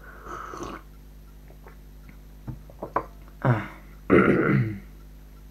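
A man drinking tea: a short slurping sip, a few light clicks as the mug is set down on the table, then a loud throaty vocal sound with falling pitch about four seconds in, like clearing his throat after the drink.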